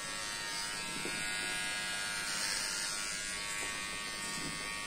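Enchen Hummingbird cordless hair clipper running with a steady buzz, brought up to the side of the head to cut hair near the end.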